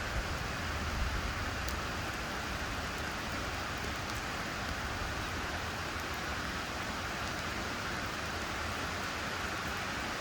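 Steady splashing and rushing of water falling into a garden pond, with a low rumble that eases off about a second in.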